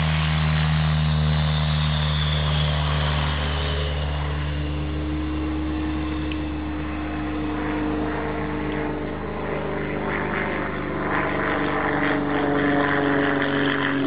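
Piston engine of a light propeller aerobatic aircraft running with a steady drone, one of its tones drifting slowly up and down in pitch.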